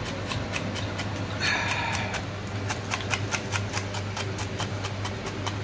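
Chef's knife rapidly slicing spring onion greens on a wooden chopping board: an even run of knocks, several a second, with a short rustling rush about one and a half seconds in. A low steady hum runs underneath.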